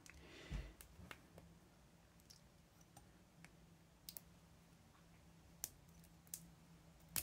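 Faint, scattered small clicks of fingernails handling a Panasonic CR2032 coin cell, picking at and peeling off its yellow plastic sheath, over near silence.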